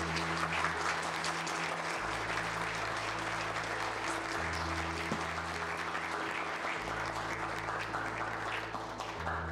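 A crowd applauding steadily, dying away near the end, over soft instrumental music whose low notes change every couple of seconds.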